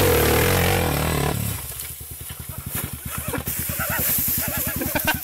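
Dirt bike engine revving hard, its pitch rising and falling, then cutting off abruptly about a second and a half in as the bike goes down. After that the engine ticks over at idle in a fast, even putter.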